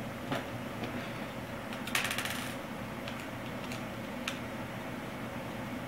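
Small laptop parts being handled: a few light clicks and a short metallic rattle about two seconds in, over a faint steady hum.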